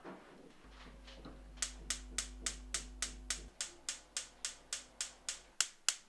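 Gas stove's electric spark igniter clicking rapidly, about four clicks a second, starting about a second and a half in, with no flame catching because the gas supply is cut off.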